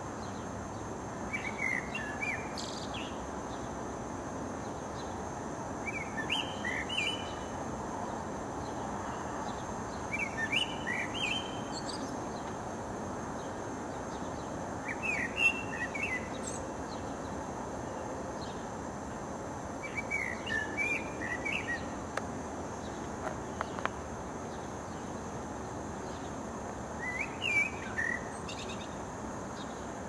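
Common blackbird singing: six short fluted phrases, one every four to five seconds, with pauses between them, over a steady low background noise.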